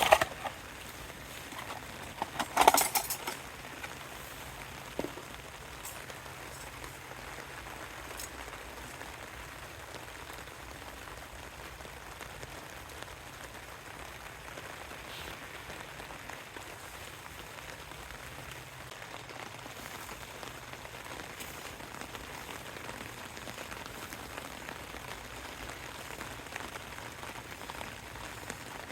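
Steady rain falling, an even hiss throughout. A few sharp knocks come near the start, the loudest about three seconds in.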